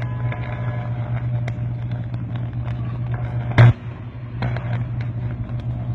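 High-voltage power line arcing at the top of a utility pole: a fault arc giving a steady loud buzz. About three and a half seconds in comes a sharp crack, after which the buzz drops away for under a second and then starts again.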